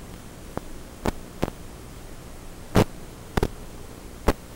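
Steady static hiss and low hum from an analog FPV video receiver's audio channel recorded to DVR, broken by about six sharp pops, one of them doubled.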